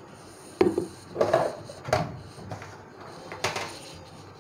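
Kitchen utensils and containers being handled beside a small tempering pan on a gas stove: about five short knocks and clinks over three seconds, starting about half a second in.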